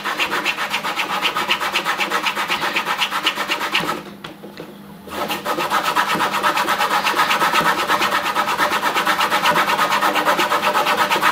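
A metal coin rubbed quickly back and forth on a leather strop charged with GOI polishing paste: a steady run of short, even rubbing strokes that stops for about a second about four seconds in, then starts again.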